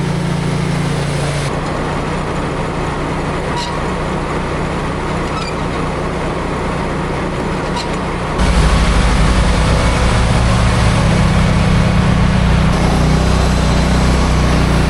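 A heavy farm vehicle's engine running steadily. About eight seconds in the sound jumps louder and deeper, with a few faint ticks before that.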